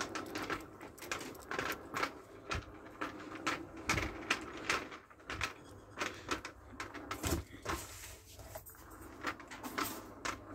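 Footsteps and handling rustle while walking through a shop: an irregular string of short clicks and knocks, several a second.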